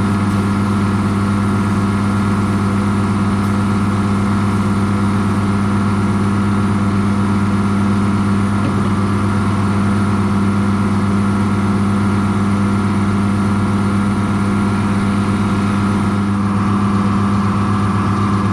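A motor or engine running steadily at a constant pitch, a close, unbroken hum with no revving.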